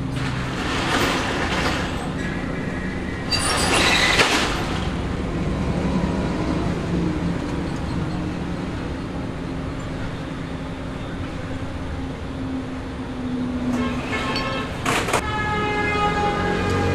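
Steady motor-vehicle engine and traffic noise, with brief louder rushes about a second in, around four seconds in, and near the end.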